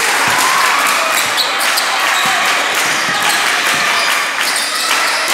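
Sounds of an indoor ball game: a ball thumping on a hard floor about once a second and short high squeaks over a steady crowd hubbub.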